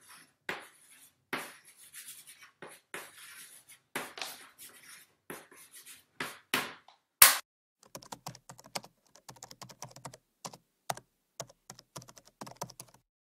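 Marker-pen scratching strokes for about seven seconds, then one sharp click, followed by rapid computer-keyboard typing clicks that stop shortly before the end.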